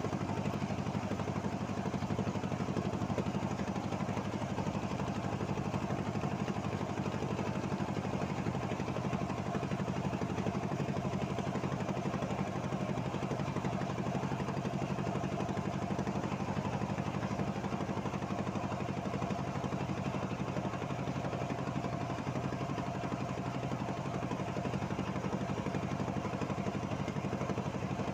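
A boat engine running steadily at a constant speed, a low, even drone with no change in pitch or level.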